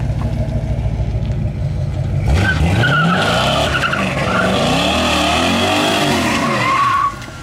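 1980 Chevrolet El Camino's swapped-in engine running, then revving up and down repeatedly under load about two seconds in, with tires squealing and sliding. The sound cuts off sharply near the end.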